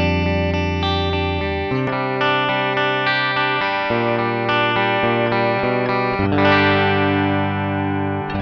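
Fender Telecaster electric guitar played clean, without the pedal, as a reference tone: ringing chords that change every second or two.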